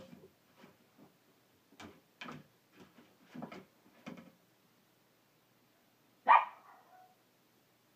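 A puppy gives one loud, short bark about six seconds in, after a run of short, soft sounds over the first few seconds.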